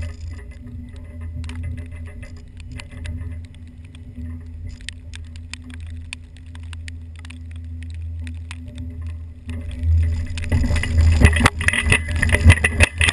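GMC wrecker truck's engine running steadily under plowing load, with many sharp rattles and knocks from the truck picked up by the boom-mounted camera. From about ten seconds in the rattling and clanking get much louder.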